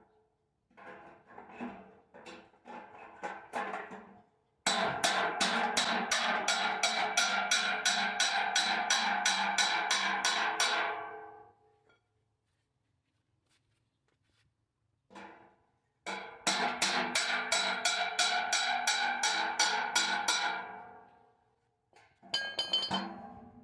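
Background music with a steady percussive beat of about four strokes a second, heard in several short stretches that each fade out.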